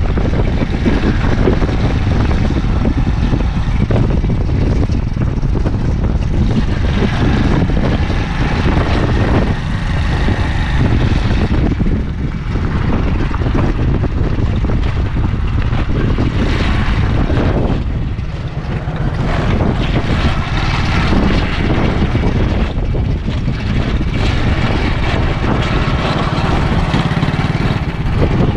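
Wind buffeting the microphone: a loud, steady rushing rumble, with a brief lull about eighteen seconds in.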